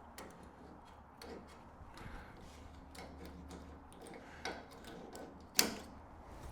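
Faint scattered clicks and ticks of hand work on the canopy's gasket strip, with one sharp click a little over five seconds in that stands out above the rest.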